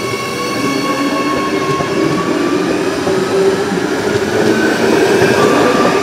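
Adelaide Metro 4000 Series Bombardier electric train passing at speed: a loud rumble of wheels on rail with a whine of several high tones, swelling as the last car comes by.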